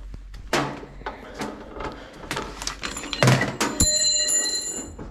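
Battery charger clamps and cables being handled: a run of clicks, knocks and clunks, loudest about three seconds in, followed by a short high ringing tone.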